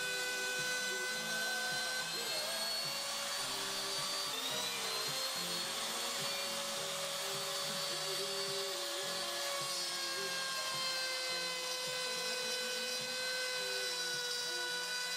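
Handheld trim router running with a steady whine as it cuts a circular groove about 3 mm deep into a wooden tabletop. The pitch of the whine wavers slightly under the load of the cut.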